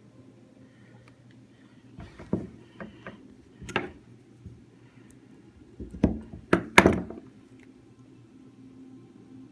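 Scattered sharp knocks and clicks of small tools and a watch's strap pins being worked into place by hand, in two clusters, the loudest near the end, over a faint low hum.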